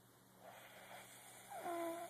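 Snoring: a rough, breathy snore starts about half a second in, and ends in a short pitched, whistling note near the end, the loudest part.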